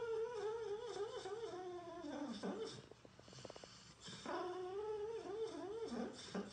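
A dog whining in two long, wavering cries, each dropping in pitch at the end, with a short rapid rattle between them.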